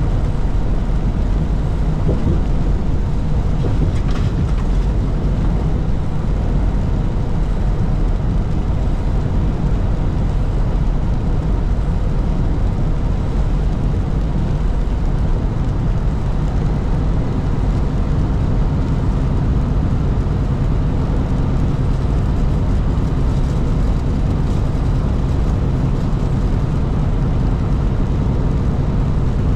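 Steady in-cab drone of a truck driving at highway speed: low engine and road rumble. A low engine hum comes through more clearly in the second half.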